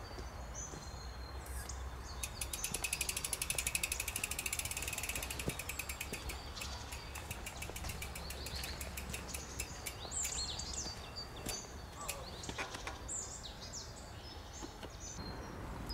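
Rockrider AM 100 S mountain bike's rear freewheel hub ticking rapidly as the wheel spins free, the clicks slowing over about four seconds and dying away. Birds chirp now and then around it.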